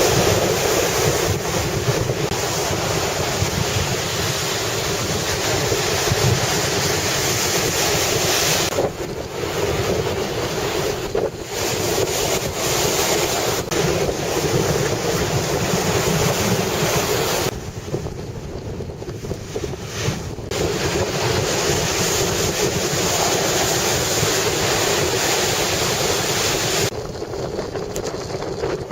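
Strong typhoon wind blowing across the microphone over the sound of surf. The wind eases for a few seconds two or three times.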